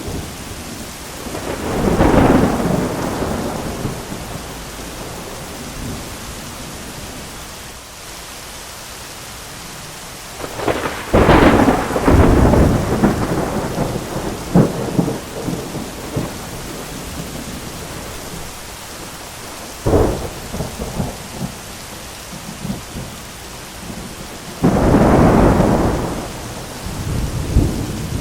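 Thunderstorm: steady heavy rain with repeated thunder. A rumble comes about 2 s in, a loud crackling clap about 11 s in, a sharp crack about 20 s in, and another loud rumble about 25 s in, with further crackles near the end.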